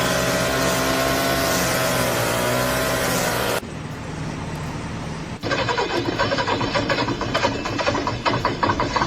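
Engine noise from vehicles or machinery, broken into three short stretches with abrupt cuts: a loud steady pitched drone, a quieter stretch, then a loud rattling stretch.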